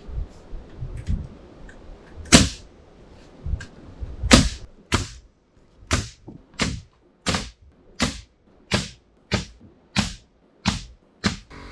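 Hammer driving nails into wood framing: a lone blow, then a steady run of sharp strikes about one every two-thirds of a second, with a few lighter taps before them.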